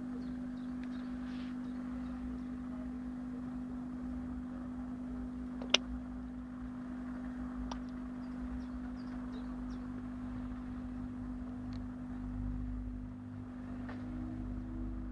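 A steady low hum with a low rumble under it, and one sharp click about six seconds in.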